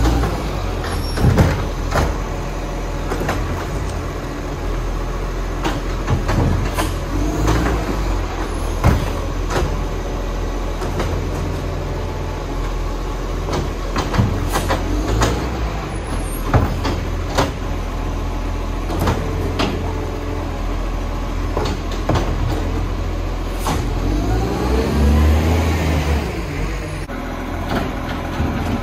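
Garbage truck engine running, with repeated knocks and clanks throughout. The engine revs up about three-quarters of the way through.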